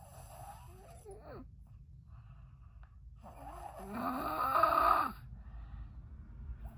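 A sleeping person snoring loudly, two snores in turn: a softer one in the first second and a half, then a louder one lasting about two seconds from about three seconds in.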